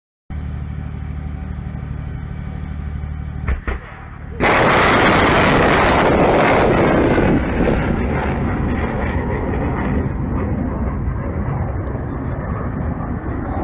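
A steady low engine hum, then about four seconds in a sudden loud blast of rocket motors as S-300 surface-to-air missiles launch, lasting about three seconds before easing into a long, steady rumble.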